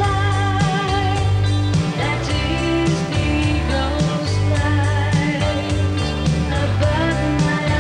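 A woman singing a pop song with a band: electric guitar, bass and a steady beat.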